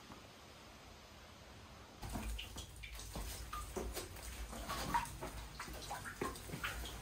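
Faint steady hiss, then from about two seconds in water dripping inside a rock cave: many short drops and plinks at irregular intervals.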